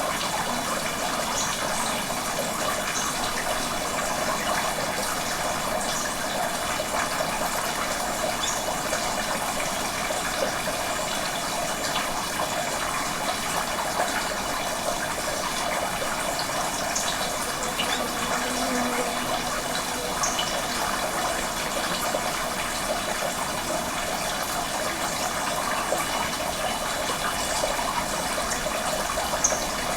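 Steady rush of running water, with brief high chirps now and then.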